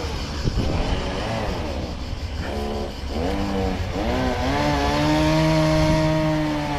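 Stihl chainsaw engine revving up and down several times, then held at high revs for about two seconds near the end.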